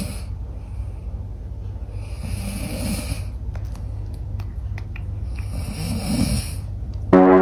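Cat snoring in deep sleep, a hissing, rasping breath about every three seconds. Near the end a loud, steady pitched sound cuts in.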